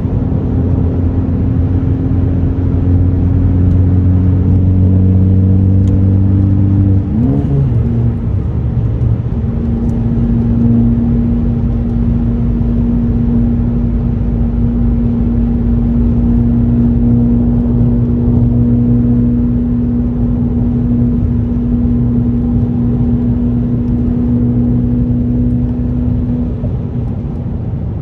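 Ford Focus ST's turbocharged 2.0-litre four-cylinder engine with an aftermarket axle-back exhaust, cruising under light load over road rumble. The engine note climbs slowly, sweeps sharply about seven seconds in as at a gear change, then holds steady.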